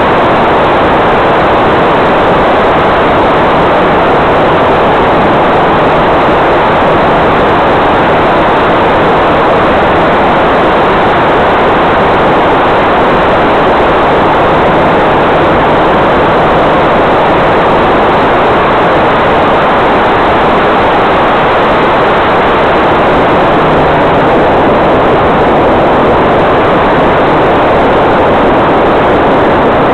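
Loud, steady rush of airflow and motor noise on the onboard microphone of a radio-controlled Piper L-4 Grasshopper model in cruising flight, with a faint low hum from the motor and propeller that comes and goes.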